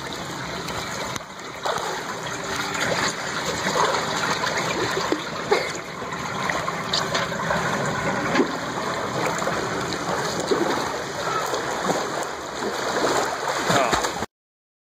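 Choppy, continuous splashing and churning of water from several swimmers doing laps; the sound cuts off suddenly near the end.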